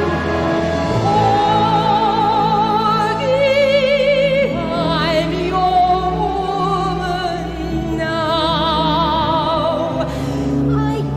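A woman's soprano voice singing long held notes with a wide vibrato, over orchestral accompaniment.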